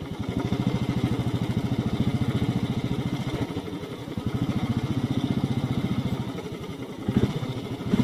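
Royal Enfield Classic 350's single-cylinder engine running under way at low speed, a steady fast beat. The throttle eases off twice, about halfway through and again near the end, and then picks up.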